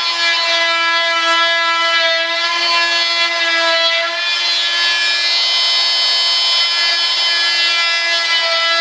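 Vibrating saw running steadily with an even buzz as it cuts out a molded gear door part, the blade rasping through the material.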